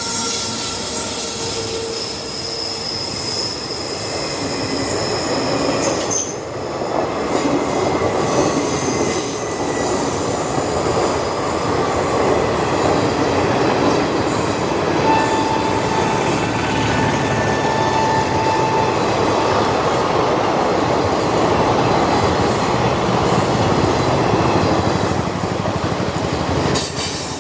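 Passenger express train hauled by a WAG-9 electric locomotive rolling past, its coaches rumbling over the rails with wheel squeal. A thin steady tone sounds for about four seconds past the middle.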